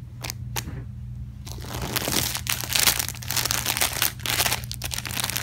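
Plastic crinkling and rustling as skeins of yarn are handled in a plastic storage tub. It starts about one and a half seconds in and keeps up as dense crackling; a few soft clicks come before it.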